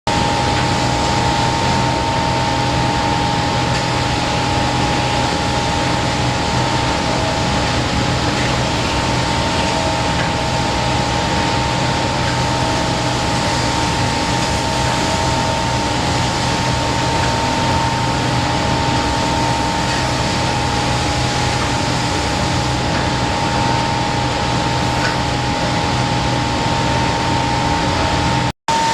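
Kundig top-and-bottom sanding machine running: a steady whirring with a constant high whine and a low hum. The sound drops out for a moment near the end.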